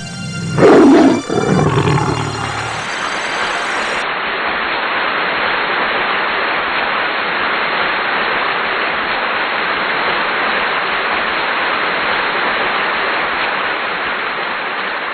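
A loud, animal-like roar that falls in pitch about half a second in, over a low rumble. It gives way to a steady, even wash of hissing noise that holds through the rest.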